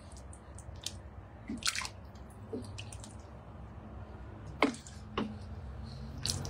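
Wooden spoon stirring a chunky coconut soup with tofu in a Thermomix's stainless steel bowl: wet squishing with a few sharp clicks as the spoon knocks the bowl, over a low steady hum.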